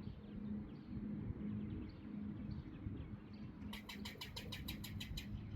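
A bird calling in a rapid run of short, high chirps, about eight a second, starting a little past halfway, over a low steady hum.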